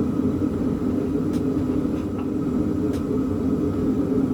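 Tin snips closing twice, two short sharp clicks, cutting easily through thin pieces, over a steady background hum.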